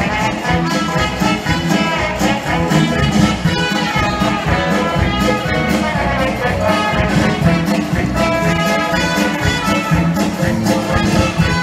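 Music with brass instruments over a steady beat.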